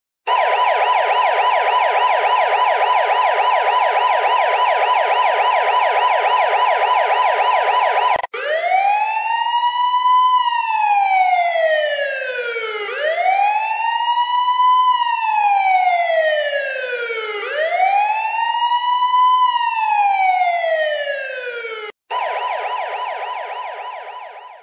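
Electronic police siren changing modes: a rapid yelp warbling up and down, then after a click about eight seconds in a slow wail that rises and falls three times, then the rapid yelp again, fading out at the very end.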